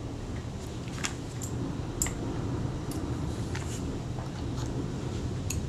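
A few light, sharp metal clicks as a small screwdriver and fingers handle the open base of a Kodak Retina IIIC camera body, over a steady low hum.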